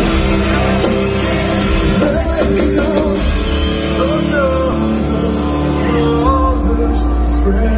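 Live rock band playing loud, with a singer's voice over distorted electric guitars, bass and drums, as heard from the audience.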